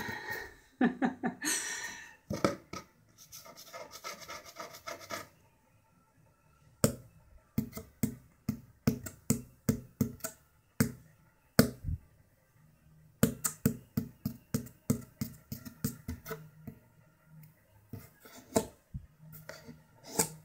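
Scratching on a cardboard box: rapid runs of sharp scratching strokes with short pauses between them, as the cat in the box is teased and plays.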